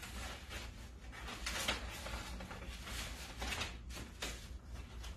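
Stiff brown paper sheets being handled, rustling and crinkling in short, irregular bursts, with the loudest about one and a half seconds in.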